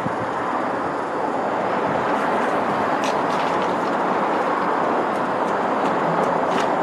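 Steady rumbling noise of passing road traffic, growing slightly louder, with a couple of faint clicks.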